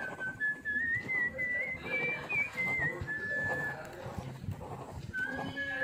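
A tune whistled on one high, thin tone, stepping from note to note; it breaks off about two-thirds of the way through and picks up again near the end.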